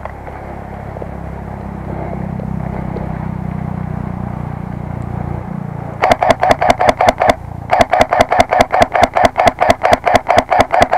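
Ares Amoeba AM-013 airsoft electric rifle firing two rapid full-auto strings of sharp shots, about eight a second. The first string lasts about a second; after a short pause, the second runs over three seconds. Before the shooting, a low steady hum.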